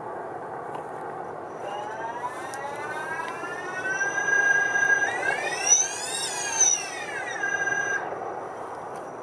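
T-Motor MN705 125 KV brushless motors on a coaxial multirotor, spinning without propellers: an electric whine rises from about two seconds in and climbs higher around five seconds. It peaks near six seconds, drops back and cuts off about eight seconds in, the motors running normally at about −17 °C.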